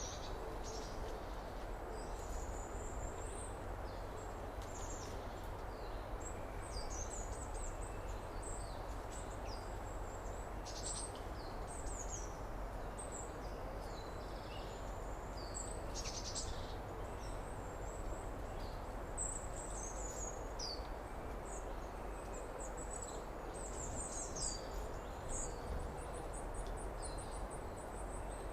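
Outdoor summer ambience: many small songbirds chirping and trilling high and intermittently over a steady low background hum of environmental noise. A rapid, high buzzing trill comes in near the end.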